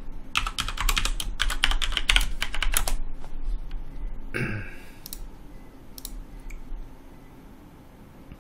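Computer keyboard typing: a fast run of keystrokes for about three seconds as a password is entered, then a brief louder noise and a few single clicks.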